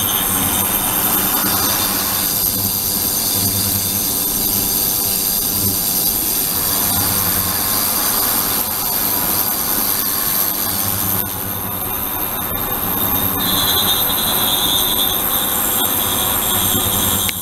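Ultrasonic cleaning tank running, its cavitating water giving a loud steady hiss with several high-pitched whining tones. One whistling tone drops out about half a second in and comes back about thirteen seconds in.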